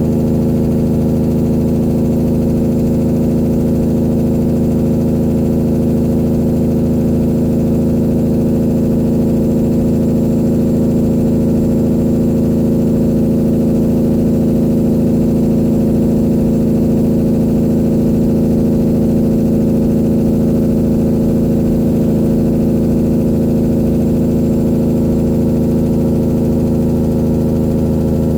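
Straight-piped diesel engine of a 1999 Peterbilt 379 semi truck running steadily at an even speed, with an unchanging low drone.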